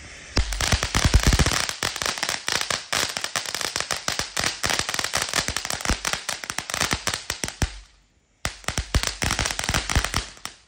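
Ground fountain firework crackling: a rapid, dense run of sharp pops from its crackling sparks, starting about half a second in and heaviest in the first two seconds. The crackling breaks off briefly about three quarters of the way through, then starts again for another burst.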